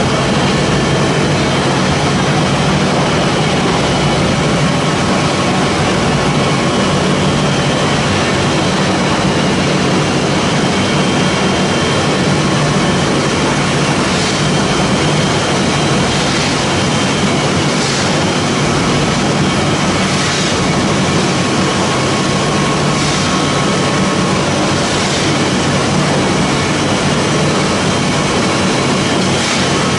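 Vertical ring-die wood pellet mill and its screw feeder running: a loud, steady machine drone with a strong low hum.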